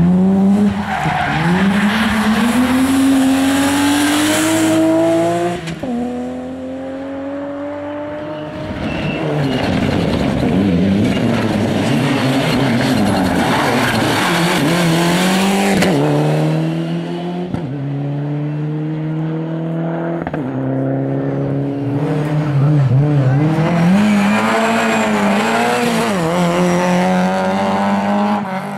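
Rally cars driven hard one after another, their engines revving up through the gears, the pitch climbing and dropping again at each shift or lift, with some tyre squeal.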